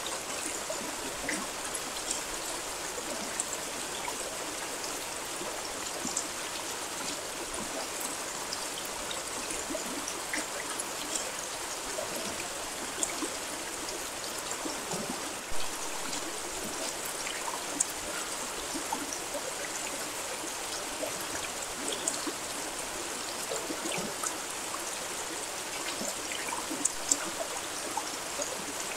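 Steady rain falling: an even hiss with many small scattered drop ticks and a few louder single drips, one of them about halfway through.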